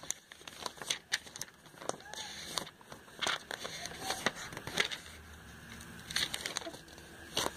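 Glossy catalog pages being flipped and handled: scattered crackles and clicks of stiff paper turning.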